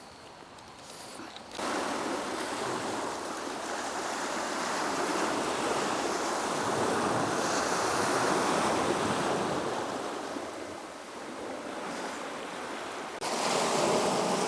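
Ocean surf washing onto the shore, a steady rushing that swells and eases. It starts abruptly about a second and a half in and steps up louder near the end.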